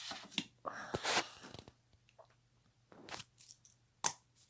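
Rustling and handling noises, then a single sharp click about four seconds in.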